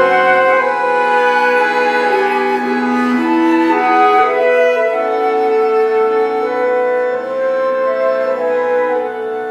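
Chamber trio of flute, bass clarinet and accordion playing together, held overlapping notes that move to new pitches every second or two.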